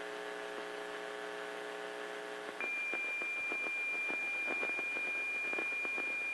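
Weather radio receiver output after a NOAA Weather Radio test message: a steady buzzing hum for about the first two and a half seconds, then it cuts over to a single continuous high-pitched tone with faint crackle underneath.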